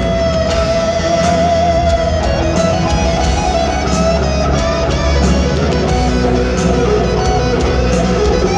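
Live rock band playing in an arena: an electric guitar lead holds long, wavering notes over the full band.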